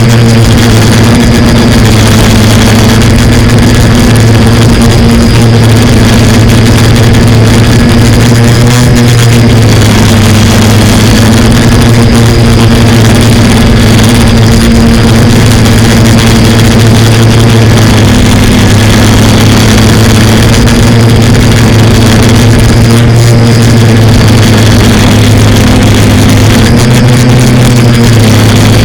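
Quadcopter's electric motors and propellers buzzing loudly and steadily, the pitch drifting slightly up and down as the throttle changes.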